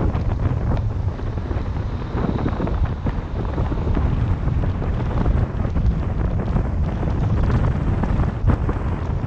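Wind buffeting the microphone of a moving car, a gusty low rumble over tyre and road noise.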